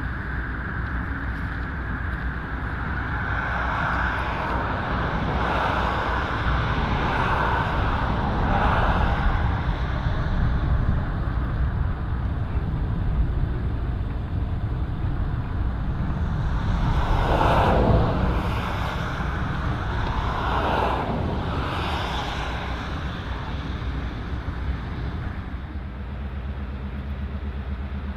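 Steady low rumble of heavy vehicles, swelling twice as something loud passes, loudest about two-thirds of the way in; near the end a steady diesel-engine hum sets in.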